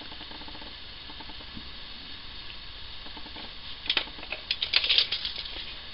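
Handling noise: faint ticks over low room hiss, then a quick run of sharp clicks and taps from small hard objects being handled about four seconds in.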